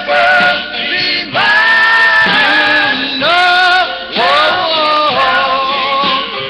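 Doo-wop vocal group singing held notes in close harmony, played from a 7-inch single on a Silvertone dual-speaker portable record player and picked up through a webcam microphone.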